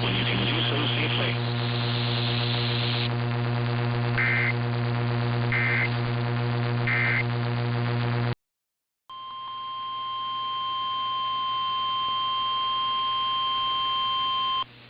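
Weather-radio emergency alert signal: a steady electrical buzz carries three short two-tone data bursts of the SAME alert header. After a brief dropout comes the long, steady single-pitch NOAA Weather Radio warning tone that announces a new warning.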